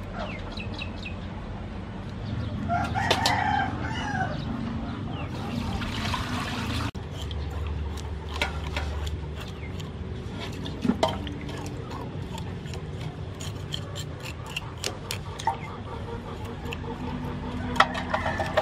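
A rooster crows once, about three seconds in. After that, a knife scrapes the scales off a whole fish in a metal basin of water, making a run of quick, sharp scratchy clicks.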